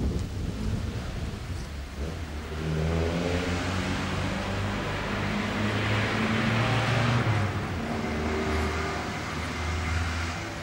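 A motor vehicle passing: a steady engine hum with shifting pitch, and tyre and road noise that swell to a peak about six to seven seconds in and then fade away.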